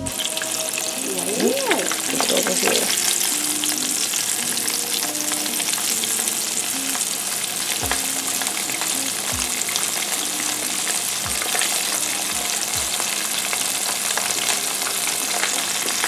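A thick piece of flour-breaded fish deep-frying in a pan of oil on medium heat, sizzling and crackling steadily.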